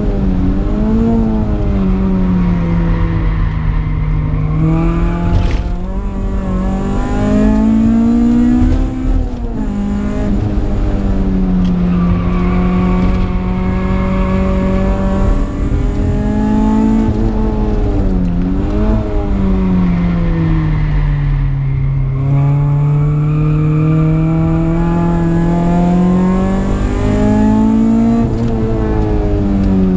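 Supercharged Honda K20 inline-four in a Civic, heard from inside the cabin while driven hard on track: revs climb and fall over and over through acceleration, gear changes and corners, with a few quick dips and rises in pitch.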